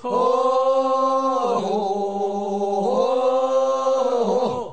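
Voices singing the drawn-out refrain of a Korean bier-bearers' funeral song (sangyeo-sori), answering the lead singer's line: three long held phrases, the middle one lower, each sliding down at its end.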